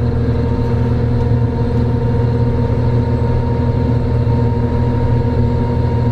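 John Deere 1270E harvester's diesel engine running steadily as the machine drives slowly, a constant drone with a thin higher tone held over it.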